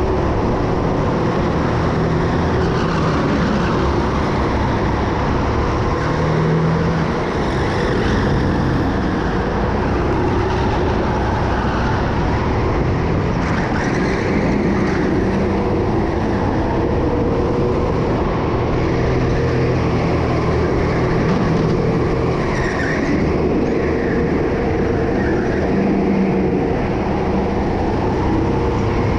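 Go-kart engine running at race pace, its pitch rising and falling.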